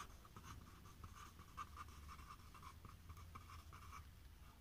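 A pen writing on paper: a quick run of faint, short scratching strokes as a word is handwritten.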